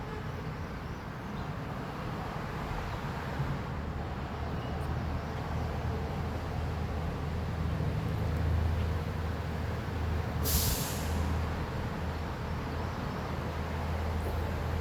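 Low, steady rumble, strongest in the middle, with one short, loud hiss about ten and a half seconds in; no birdsong stands out.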